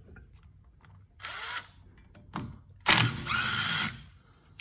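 A power tool, likely driving out the brake rotor's retaining screw, runs in two short bursts: a brief one about a second in and a longer, louder one near the three-second mark.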